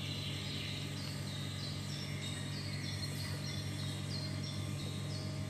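Steady electrical hum with a run of short, high, falling chirps repeating two or three times a second.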